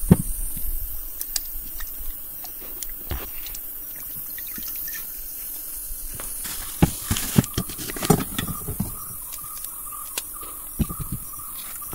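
Kitchen knife peeling and cutting shallots on a wooden cutting board: scattered knocks and clicks, busiest about two-thirds of the way through.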